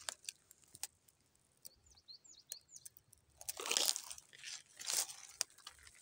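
Footsteps crunching on dry leaves, twigs and loose stones, loudest about three and a half and five seconds in, with scattered small clicks. A few short high bird chirps sound about two seconds in.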